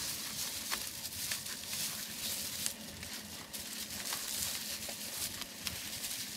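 Faint rustling and crackling of dry rice straw being handled, with scattered light clicks over a steady high hiss of outdoor background.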